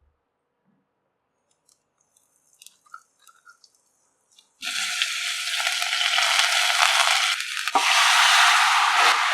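Hot oil for a rasam tempering sizzling. A few faint clicks come first, then a loud sizzle starts suddenly about halfway through. It breaks off for a moment with a low knock and surges back louder near the end.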